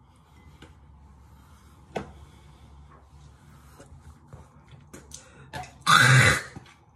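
Quiet handling sounds with a few small clicks, then one loud, brief burst of noise close to the microphone about six seconds in.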